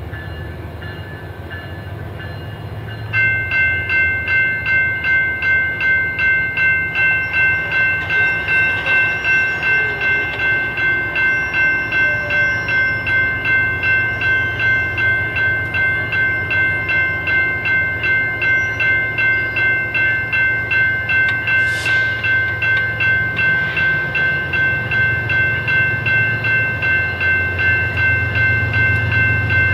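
A railroad grade-crossing warning bell starts suddenly about three seconds in and rings steadily, about two strokes a second, as the crossing gates come down. Under it is a low rumble from an approaching freight train, which grows near the end.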